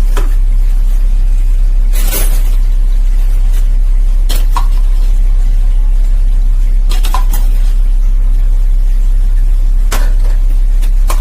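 A spoon clinking and tapping against a bowl as coconut oil is spooned in, in about six separate clinks a second or two apart, over a loud steady low electrical hum.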